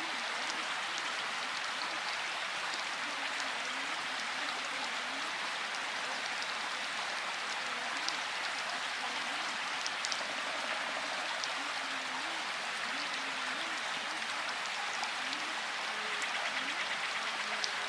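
Steady, dense rain, an even hiss with a few sharper drop ticks. A faint voice speaking subliminal affirmations sits quietly beneath it.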